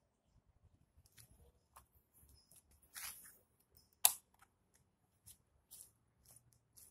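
Faint handling noise of a camera being set in place: rustling and light clicks, with one sharp click about four seconds in. A few soft, evenly spaced taps about half a second apart follow, like footsteps walking away.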